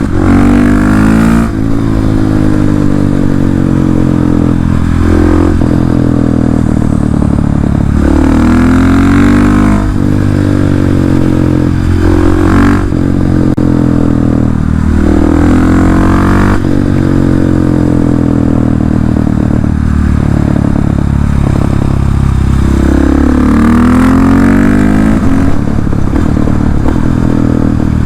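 KTM 690 SMC R single-cylinder engine through an Arrow exhaust with the dB-killer removed, accelerating and shifting repeatedly so its pitch climbs, breaks and falls several times. Sharp crackles and pops come from the exhaust when the throttle is closed.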